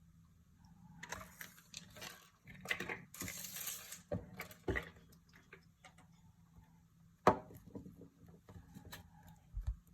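Hands unwrapping surprise eggs: crinkling of foil and plastic wrapping with scattered small clicks, and one sharp snap about seven seconds in.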